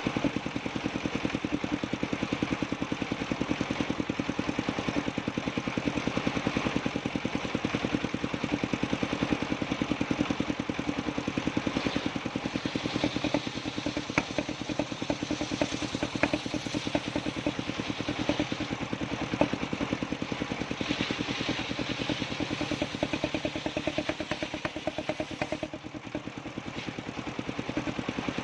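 Engine-driven circular sawmill running steadily with a fast, even engine pulse, and a scatter of sharp clicks and clatter in the middle.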